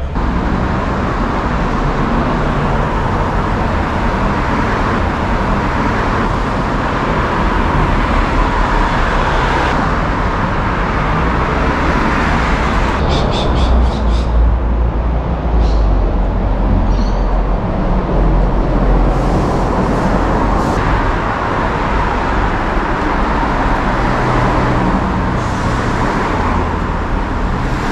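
Road traffic on a busy street: cars passing with a steady rumble of engines and tyres. A deeper rumble swells for several seconds about halfway through as a heavier or closer vehicle goes by.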